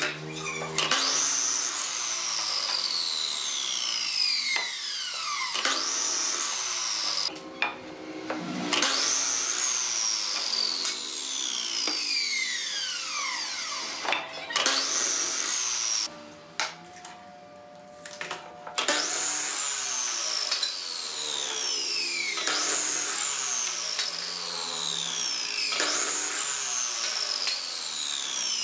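Electric miter saw making cut after cut through wooden boards: each time the motor whines up, the blade goes through the board, and the whine then falls away slowly as the blade coasts down. This repeats about seven times, with a quieter stretch about halfway through.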